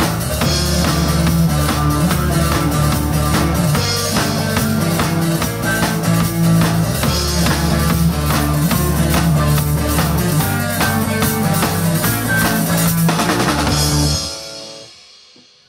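Rock band playing live on drum kit, bass guitar and guitars, with a steady driving beat. About fourteen seconds in the band stops together on a final hit, and the chord and cymbals ring out and fade away.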